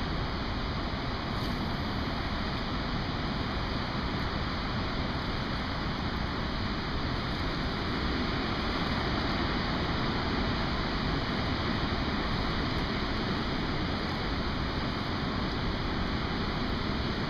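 Steady rush of water pouring from a hydroelectric dam's two open sluice gates into a river in high flood, with wind buffeting the microphone.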